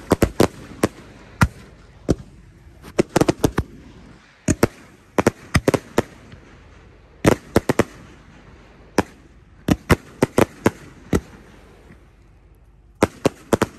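Aerial fireworks bursting overhead: a rapid, irregular series of sharp bangs in clusters of two to five. There is a lull of about two seconds near the end before another cluster.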